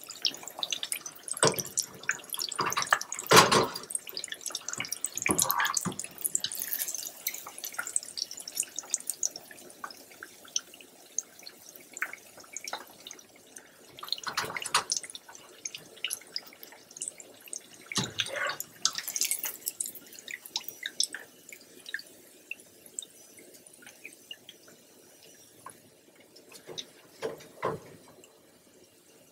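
Hot frying oil sizzling and crackling in a pot as fried chicken pieces are lifted out with a wire spider strainer, with several louder knocks and clatters along the way. The crackle thins out and grows quieter toward the end as the pot empties.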